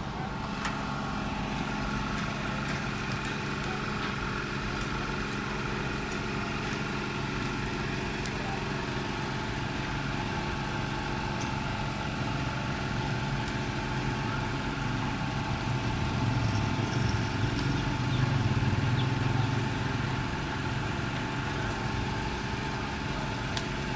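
A steady engine-like hum made of several held tones, getting louder for a few seconds about two-thirds of the way through, with faint clinks over it.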